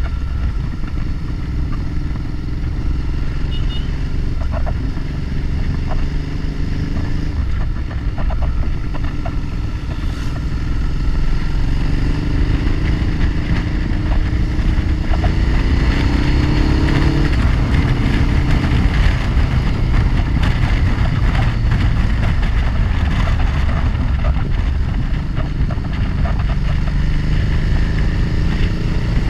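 Motorcycle engine running under way, heard close up from a camera mounted on the bike over a steady low rumble. The engine note rises as the bike accelerates and drops back at gear changes, a few times.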